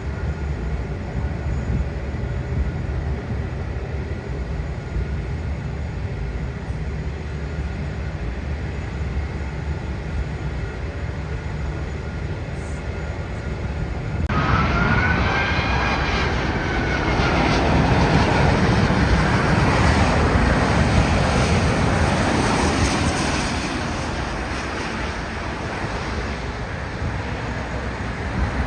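Jet engines of an Airbus A380: a steady low rumble that abruptly gives way, about halfway through, to louder jet noise with a whine rising and then falling in pitch. It swells for several seconds and eases off near the end.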